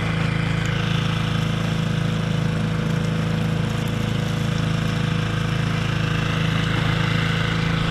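4 hp Mercury outboard motor running steadily at low cruising throttle, pushing the canoe along.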